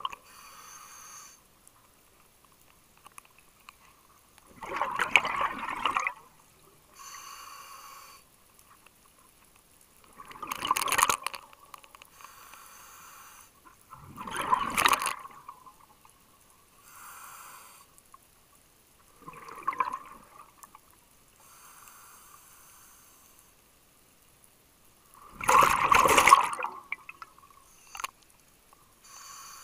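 Scuba diver breathing through an open-circuit regulator. A quieter hiss on each inhale alternates with a loud burst of bubbling exhaled bubbles, one breath cycle about every five to six seconds.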